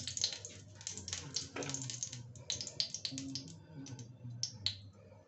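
A small pool of hot oil crackling and popping in a kadhai. The crackles come thick at first, then thin out into scattered single pops toward the end.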